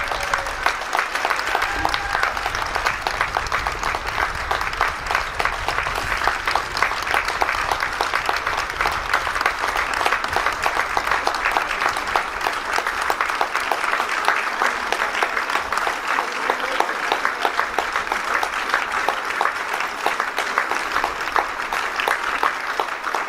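Crowd applauding steadily just after a brass band has stopped playing.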